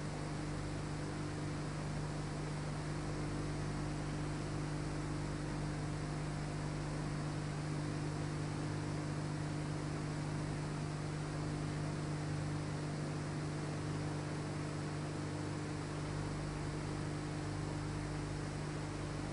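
Steady electrical hum with a constant hiss underneath; no tool strikes stand out.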